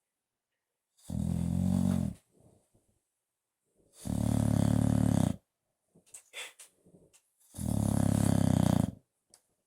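Bulldog snoring in its sleep: three loud snores, each over a second long, about three seconds apart.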